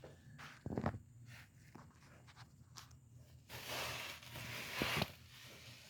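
Handling noises: a sharp knock about a second in, a few faint clicks, then rustling and scraping that ends in another knock.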